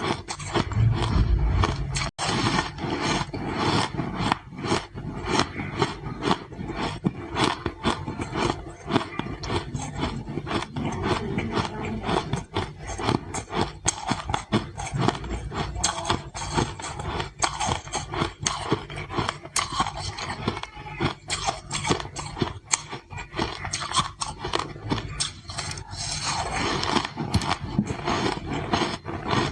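A person chewing ice close to the microphone: a dense, irregular run of crunches and cracks.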